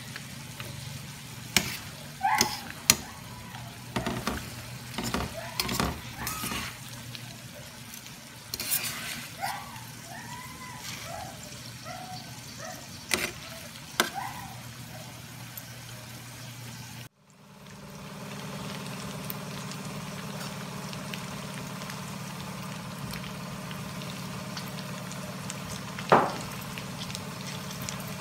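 A metal spatula scraping and knocking against a square metal pan while stirring chicken sisig with tofu as it fries. About halfway there is a cut; after it the pan sizzles more steadily under a low hum, with one sharp knock near the end.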